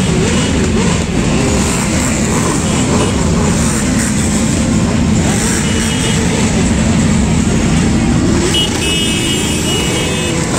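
Several motorcycle engines running together in a parade, a steady mix of engine noise whose pitch wavers up and down as the riders work the throttles. A few short high beeps come near the end.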